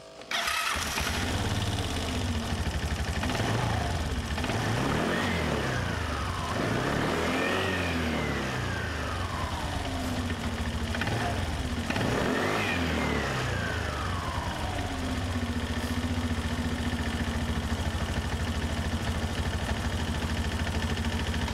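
Suzuki Address V125G scooter's single-cylinder four-stroke engine running, revved up and back down three times, then settling to a steady idle.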